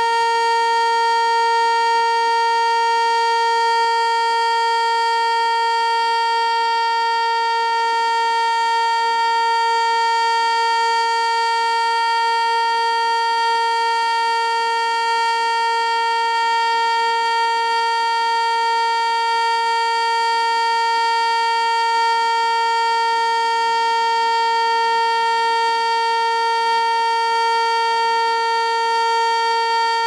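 ASC T-121 outdoor warning siren sounding its steady alert signal: one unwavering pitch rich in overtones at a constant level. It is stuck on, still running minutes into an alert that should have lasted one minute, because it missed its cancel tones.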